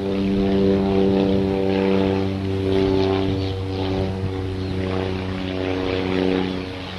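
A steady engine drone: a low hum with a stack of overtones, holding almost the same pitch throughout and easing slightly in level near the end.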